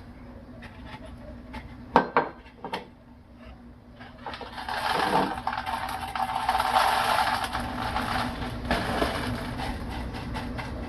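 Expanded clay pebbles (LECA) rattling and clinking as they are shifted and poured around a plant cutting in a container. A couple of sharp knocks come about two seconds in, then a steady dense rattle from about four seconds on.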